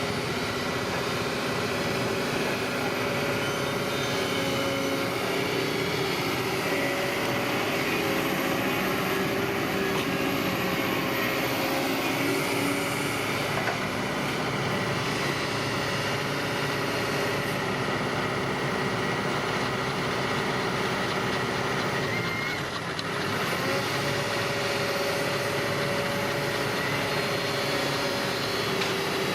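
Bulldozer's diesel engine running steadily under work, with a short dip in level about 23 seconds in.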